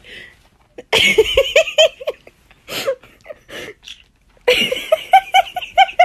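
A person laughing in two fits of quick, repeated bursts, the first about a second in and the second about four and a half seconds in.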